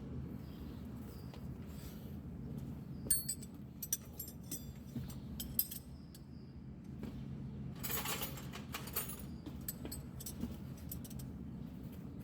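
Metal hand tools clinking and rattling in short bursts, a cluster of sharp clicks a few seconds in and a brief rattle about two-thirds of the way through, over a steady low hum.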